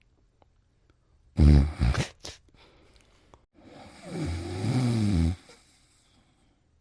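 Snoring: a short, loud snore about a second and a half in, ending in a few sharp clicks, then a longer snore with a wavering pitch from about four seconds in. Quiet breathing pauses lie between them.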